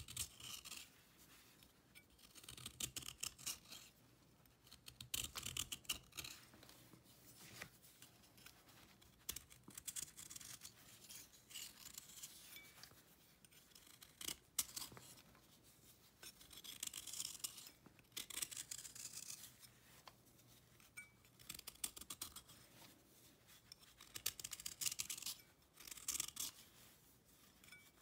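A kitchen knife shaving a dried cake of cleaning paste, scraping off crumbly chalky flakes. It comes in repeated strokes of a second or two with short pauses between.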